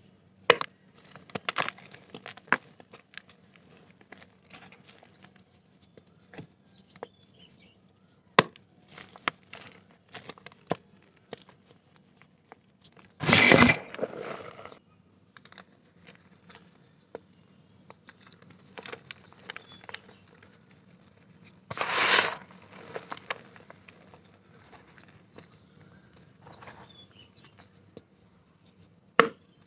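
Soft black dirt clumps crunching and crumbling: a scatter of small crackles and crumbles, with two louder crunches, one about halfway through and one about two-thirds in.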